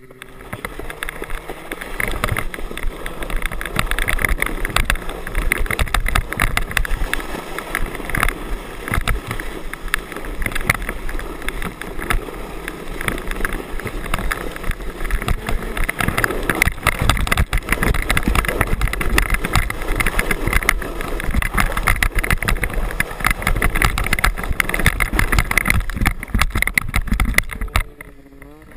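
Loud rushing noise of a sled being towed fast over snow and ice, with wind buffeting the camera microphone and bumps and rattles from the rough surface. It builds about a second in and falls away shortly before the end.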